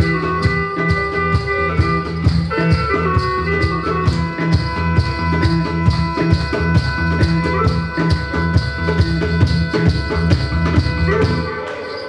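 Live band music: a wind instrument holds long melody notes over electric bass and a steady drum beat. The music dies away near the end.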